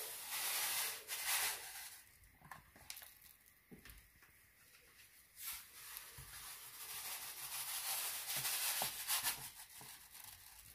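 Fine table salt pouring from a cardboard carton into an empty enamel stockpot. It comes as a grainy hiss in two long pours, with a few light knocks between them.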